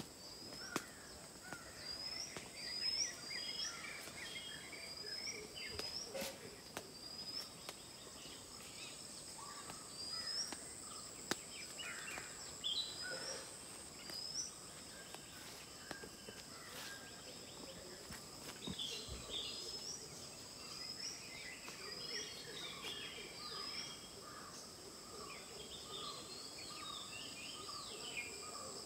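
Several birds calling over a steady high-pitched drone of insects, one bird repeating a short rising chirp over and over, and a run of quick lower notes joining in the second half.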